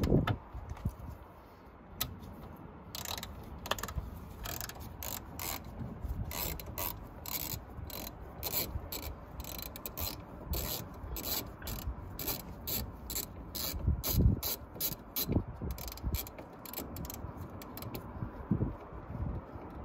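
Hand ratchet clicking in runs of quick strokes as it turns the wing-mirror mounting bolt inside a car door, with a few dull knocks from handling the tool against the door.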